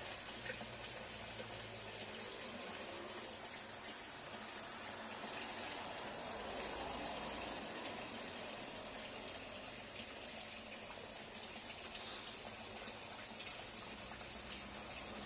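Steady, soft wash of running or falling water, an even trickling sound with faint scattered ticks.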